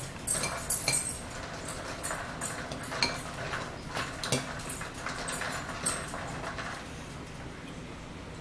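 Spoons clinking and scraping against bowls of chili, with chewing and mouth sounds, the clinks scattered through the first six seconds or so before it goes quieter.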